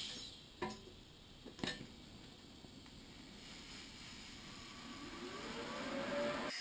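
A few sharp clicks in the first two seconds, then the TIG arc of a Miller Maxstar 150STL brazing silicon bronze onto mild steel: a hiss that grows louder, with a tone rising in pitch near the end.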